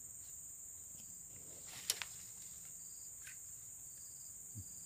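Steady, high-pitched chirring of insects such as crickets or cicadas in streamside vegetation, with a single sharp click about two seconds in.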